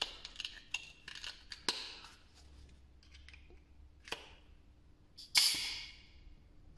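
Short blasts of compressed air hissing from a blow gun pressed into the port of a Volkswagen 2.0 TDI switchable water pump, the air pressure pushing the pump's diverter shield up over the impeller. The loudest blast comes about five seconds in, after a few clicks and knocks of the pump being handled.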